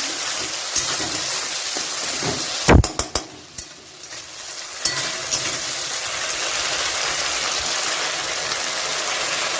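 Spice paste of ginger and cumin with tomato sizzling in hot oil in a kadai as it is fried down, a steady hiss. A little under three seconds in come a few sharp knocks of a spatula against the pan, after which the sizzle drops briefly and then picks up again.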